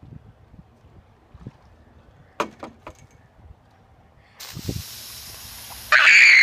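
Aerosol can of silly string spraying: a steady hiss starts about four seconds in, and near the end a loud yell, falling in pitch, rises over it.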